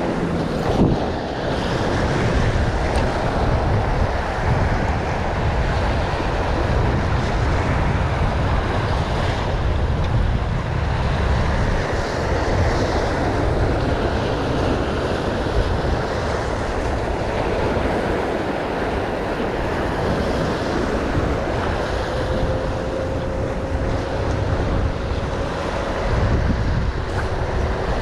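Sea surf washing and breaking against shoreline rocks, with wind buffeting the microphone.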